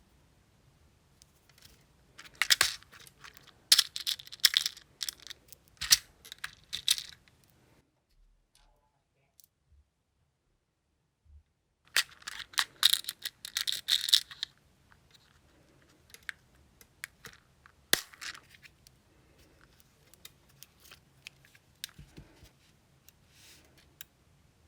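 Small hard objects and tools handled close to the microphone: quick clicks, taps and scratching come in two busy clusters, with a hush between them and a few single clicks near the end.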